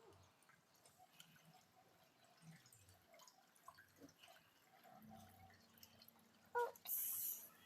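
Faint, scattered drips and small splashes of water from a toy water fountain table, with a short squeak about six and a half seconds in. A brief louder hiss of spraying water follows just before the end.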